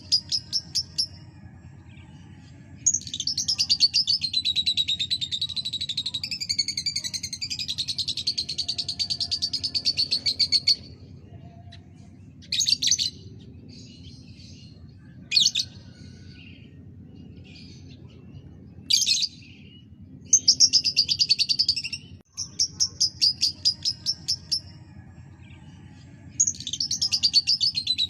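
Lovebird singing: long runs of rapid, high-pitched chattering trills, broken by a few short chirps in between.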